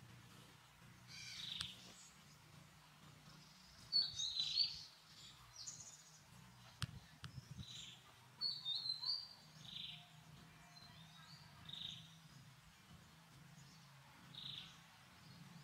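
Short, high-pitched chirping calls, a dozen or so scattered irregularly and some gliding in pitch, over a faint steady low hum.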